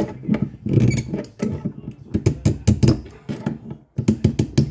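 Irregular clicks and light knocks of hands and a metal tool handling a compression fitting on a water pipe.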